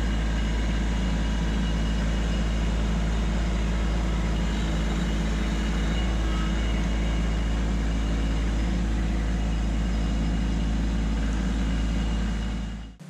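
Kubota LX2610 compact tractor's diesel engine running steadily as the tractor drives forward with a pallet of concrete deck blocks on its forks; the sound fades out near the end.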